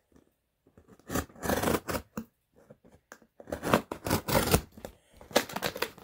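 Packing tape on a cardboard box being slit open with a small hand tool drawn along the seam, in three strokes of about a second each.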